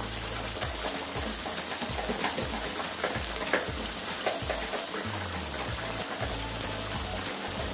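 Thin sardine-and-potato gravy boiling in a steel wok, bubbling and sizzling with small scattered pops, under background music.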